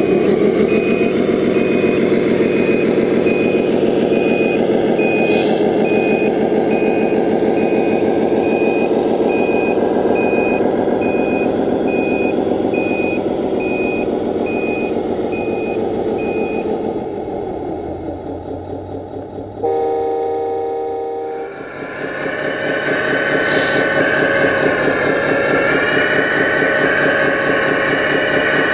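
Electronic sound module of an RC Scania 8x8 dump truck playing a diesel truck engine under steady reversing beeps in an even rhythm. The beeping stops past the middle. After a short steady tone, a different engine sound with a higher whine takes over.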